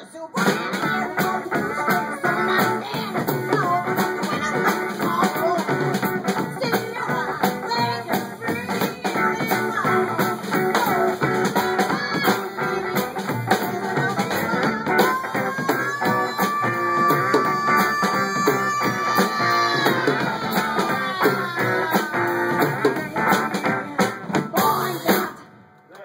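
Small swing band with upright bass playing live while a woman sings; about fifteen seconds in she holds one long high note, and the band stops on a final chord just before the end.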